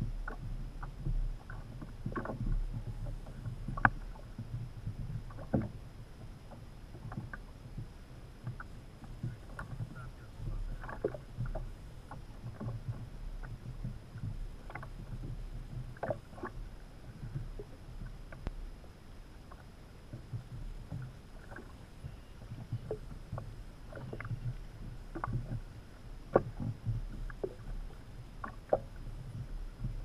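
Water lapping and slapping against the hull of a Hobie Adventure Island sailing kayak: a steady low rumble under irregular small splashes and knocks, one every second or so.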